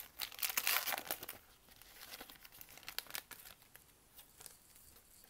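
Foil wrapper of a trading-card pack being torn open and crinkled, loudest in the first second and a half, then a few fainter crinkles.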